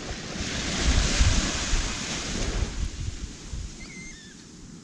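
A small wave breaking and washing up a sandy beach: the surf swells over the first second or so and fades away by about three seconds in. Wind rumbles on the microphone underneath.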